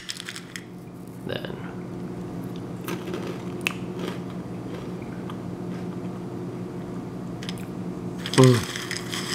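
Crunchy pretzel and bread-chip snack mix being chewed, with scattered sharp crunches over a steady low hum.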